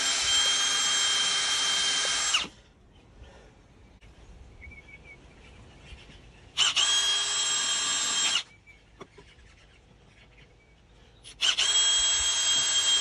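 AEG cordless drill running flat out with a small bit in steel, drilling pilot holes through a base plate: a steady high whine that stops about two seconds in, runs again for about two seconds near the middle, and starts once more near the end.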